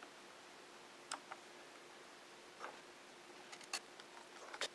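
Scattered light clicks and taps of a screwdriver working the screws of a Dell Inspiron 1420's plastic access doors and the hard drive door being lifted off, with a few clicks close together near the end.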